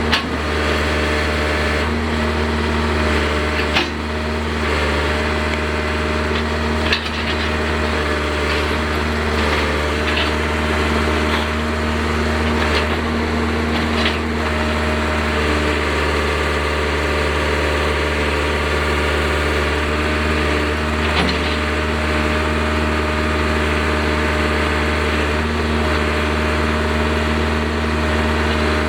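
John Deere 310C backhoe's diesel engine running steadily, with scattered sharp knocks and cracks, a few seconds apart in the first half and one more later on.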